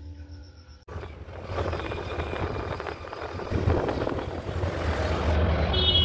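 Road vehicle on the move: a steady low rumble with road noise that grows louder. A horn honks briefly near the end.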